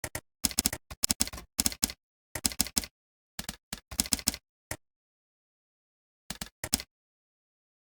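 Computer keyboard typing in quick bursts of keystrokes, with a pause of about a second and a half past the middle. Between the keystrokes the sound drops to dead silence.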